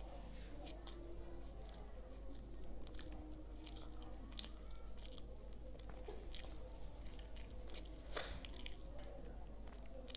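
Close-up mouth sounds of a person eating pav bhaji: chewing soft pav bread dipped in bhaji, with wet, scattered smacking clicks and one louder click about eight seconds in.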